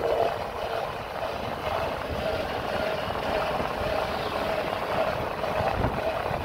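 Motorcycle engine running steadily at cruising speed, with wind rushing and buffeting over the microphone.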